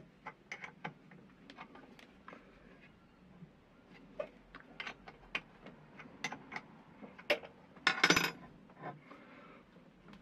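Irregular small metallic clicks and taps as a lathe milling slide and its clamps are adjusted by hand to set the grinding angle, with a louder metallic clatter about eight seconds in.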